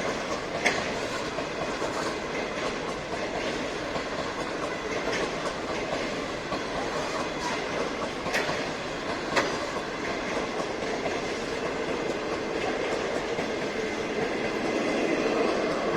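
A train rolling past on the Guangzhou–Shenzhen railway line, with steady wheel-on-rail rumble and a few sharp clacks from the wheels over the track.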